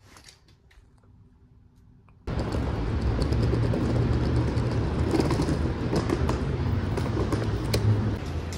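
Faint room tone with a few soft clicks, then about two seconds in an abrupt switch to loud outdoor street noise while walking on paving: a steady low rumble with scattered clicks and knocks.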